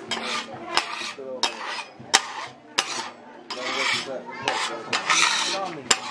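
Metal spatulas scraping and clacking on a flat-top griddle as fried noodles (mie goreng) are turned and scraped, with sharp metal clacks about every half second to second early on and once more near the end, and rasping scrapes between.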